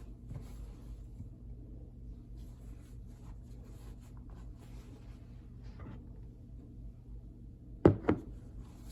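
A low steady hum, then two sharp knocks close together near the end.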